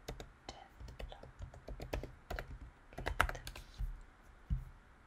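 Typing on a computer keyboard: a quick, uneven run of key clicks for about four seconds, then one separate click.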